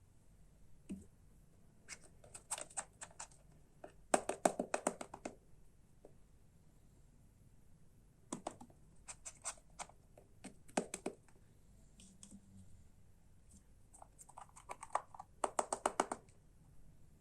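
Several bursts of rapid sharp clicking and rattling from hard plastic toy parts being handled, each burst lasting about a second, the loudest a little past four seconds in.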